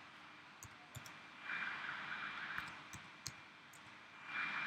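A few faint, sharp computer mouse clicks, spaced irregularly, over a low steady hiss.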